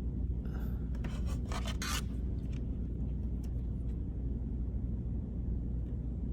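Short rubbing and scratching of wire being handled and fitted into a small plastic Posi-Tap wire connector, a few times in the first two seconds, over a steady low background hum.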